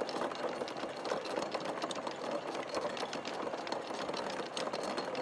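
A boat engine running steadily with a fast, even mechanical clatter, as a sailboat motors away from its anchorage.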